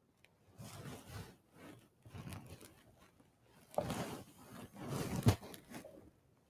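Irregular rustling and scraping handling noises, loudest about four seconds in and again around five seconds, with a sharp knock just after five seconds.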